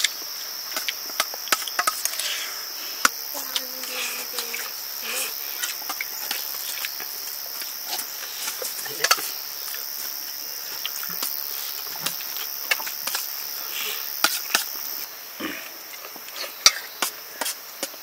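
Insects, crickets or cicadas, droning steadily in two high bands; the higher band stops about three-quarters of the way through. Many sharp clicks and knocks are scattered through it, with brief faint voices.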